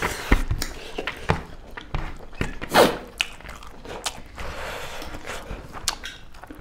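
Close-up eating sounds of two people eating curry and rice by hand: chewing, lip smacks and wet squishing of food between fingers, as scattered short clicks, with one louder short sound nearly three seconds in.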